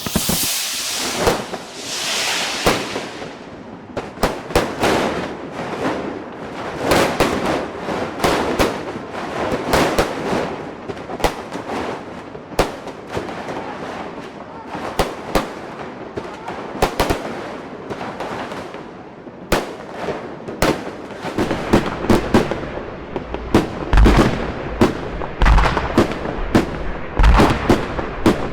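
Fireworks going off continuously: a dense run of bangs and crackles, with deep booms joining in near the end.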